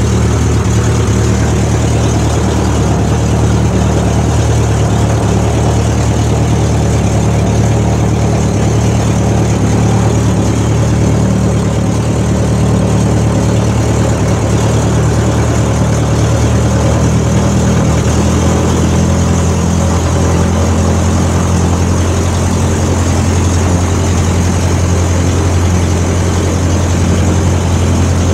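Lycoming O-360 four-cylinder aircraft engine turning a propeller in a steady ground run, heard from the cockpit, running on a single magneto. About two-thirds of the way in, its speed drops slightly and settles at a lower steady speed.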